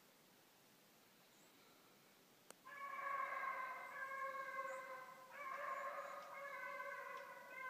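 Young beagle hound baying in long, drawn-out howls, two sustained calls that start about two and a half seconds in: a hound giving voice while running a rabbit.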